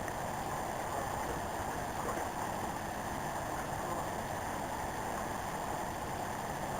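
Steady rushing outdoor noise with no distinct events, cutting off abruptly at the end.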